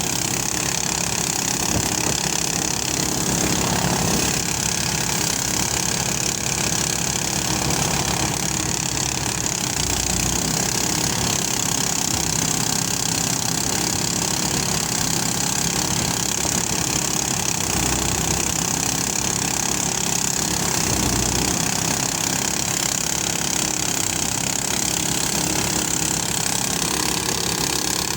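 Engine-powered rice threshing machine running steadily: a continuous engine drone with rapid, even firing beats and a constant hiss over it.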